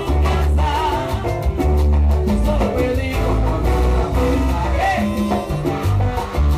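Live salsa band playing, with a heavy pulsing bass line, keyboard and percussion, and a male singer's voice over the band.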